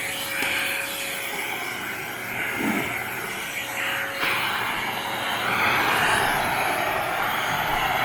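Panasonic paper-bag canister vacuum cleaner running with its nozzle attachment, a steady suction drone that shifts in tone about halfway through and again a couple of seconds later as the nozzle moves.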